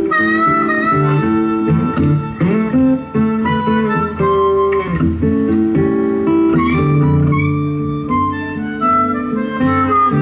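Live acoustic blues instrumental: a harmonica carries the lead with bending, wavering notes over two acoustic guitars playing the chords.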